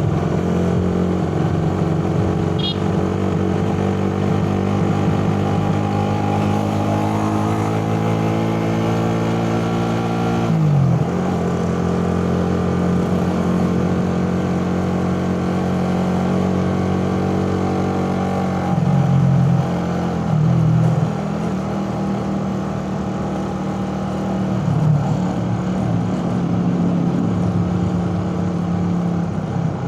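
Suzuki Raider 150 carburettor motorcycle's single-cylinder engine under way. Its pitch climbs steadily for about ten seconds, then drops sharply and settles into a steady run. A little past halfway it dips and recovers briefly twice.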